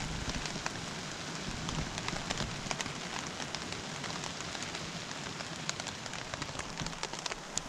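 Steak sizzling in a hot frying pan: a steady hiss with many small crackling pops.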